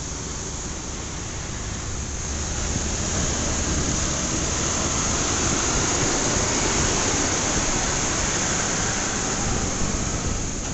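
Rushing wind and road noise from a moving two-wheeler, growing louder from about two seconds in, with a bus drawing alongside near the end.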